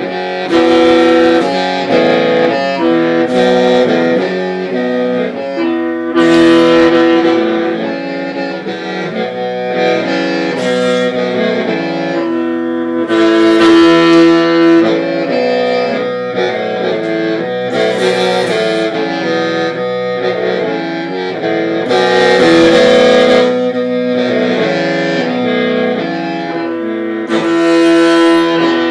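Hmong qeej (lusheng), a bamboo free-reed mouth organ, playing several pipes together as sustained, shifting chords. A brighter, breathier surge comes every four seconds or so.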